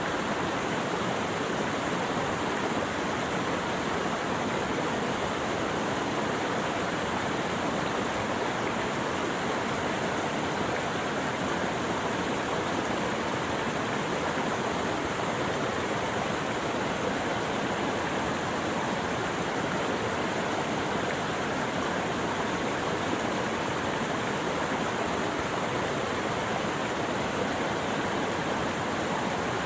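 Steady, unbroken rush of flowing water, like a stream or small waterfall.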